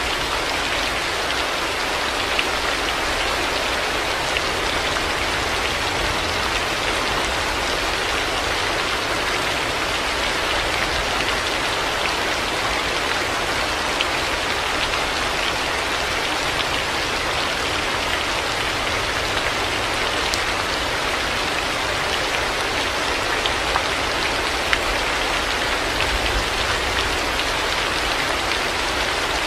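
Heavy rain falling steadily: a dense, even hiss of rain with a few sharper drop hits now and then.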